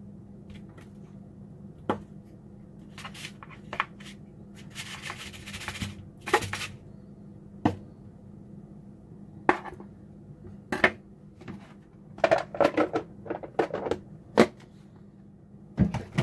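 Kitchen knife cutting fried chicken thighs on a paper plate and lifting them from a plastic container: scattered sharp taps and clicks, a few longer scraping stretches, and a quick run of knocks near the end as the knife is set down on the wooden table.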